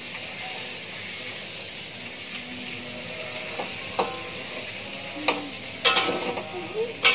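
Food sizzling in hot oil in a wok while a spatula stirs it, with a steady frying hiss. In the second half the spatula strikes the wok several times, giving a few sharp clinks.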